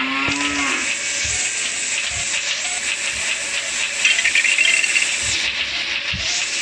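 A steady, loud hiss, with a short gliding pitched sound in the first second and a rattling stretch about four seconds in.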